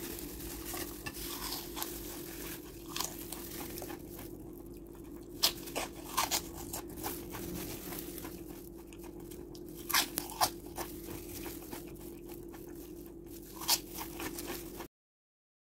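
Crisp fried kadyuri, glutinous-rice puffs coated with rice syrup and popcorn, being bitten and chewed: sharp crunches come at irregular intervals, the loudest around five to six seconds in and around ten seconds in, over a low steady hum. The sound cuts off about a second before the end.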